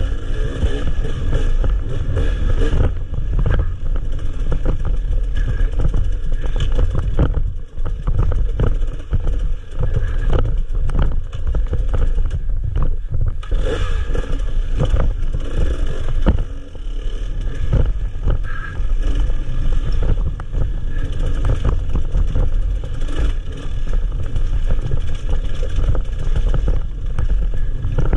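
Enduro motorcycle engine revving and falling with the throttle, cut back briefly a few times, over a rattle of knocks from the bike on a rough dirt trail.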